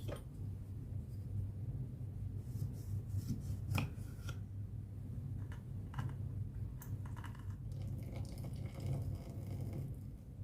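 Scattered scrapes and clicks of handling over a steady low hum, with a longer rough scraping stretch near the end.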